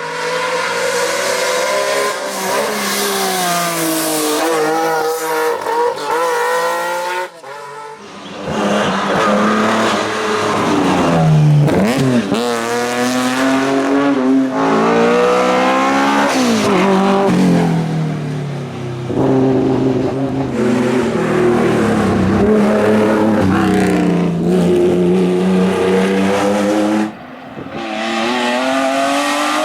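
Classic racing car engines revving hard, pitch climbing and dropping sharply with each gear change and lift-off, in several separate passes joined by abrupt cuts about a third of the way in and near the end.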